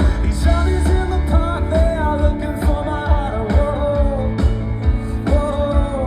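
A male lead singer sings with a live pop-rock band, over heavy bass and steady drum hits, in a concert recording.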